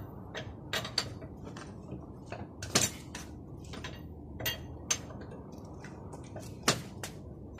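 Irregular metallic clinks and knocks of hand tools at work on the car's wheels as they are being removed, two of the knocks much louder than the rest.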